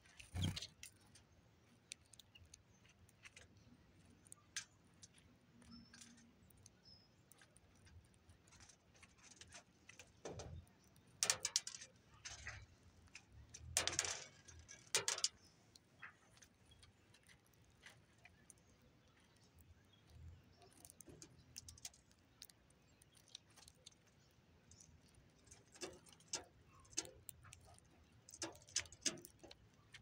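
Faint, irregular clicking and rattling of seeds and hulls as American goldfinches peck and rummage through a tray of mixed birdseed close to the microphone, with a few louder flurries of clicks.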